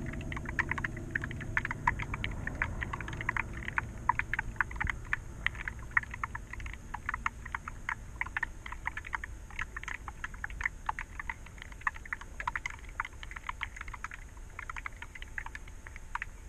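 Irregular underwater clicking and crackling, several sharp ticks a second, heard through a camera held under the creek's surface. A low murmur fades out over the first few seconds.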